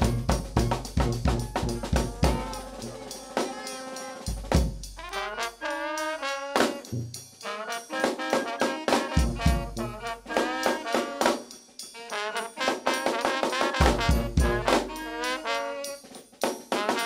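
Brass band playing: sousaphone, trombone, trumpet, saxophone and flute over bass drum and snare drum. The drum beat thins out for a few seconds about four seconds in while the horns carry on.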